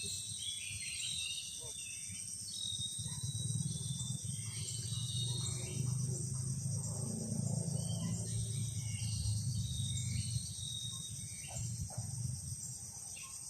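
Steady high-pitched insect chorus with short chirping bird calls repeating over it, and a low rumble underneath.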